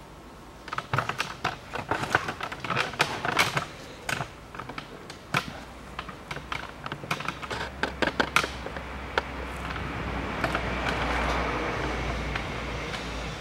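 Irregular light clicks and taps, several per second, for most of the first nine seconds. A steady low rumble with a hiss swells from about seven seconds in, is loudest around eleven seconds, and eases toward the end.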